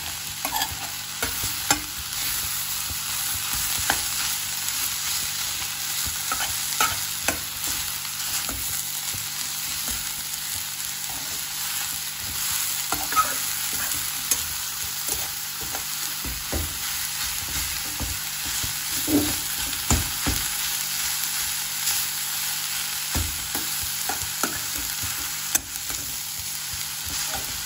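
Red amaranth leaves sizzling with a steady hiss in a kadhai. A spatula stirs and tosses them, with scattered scrapes and knocks against the pan.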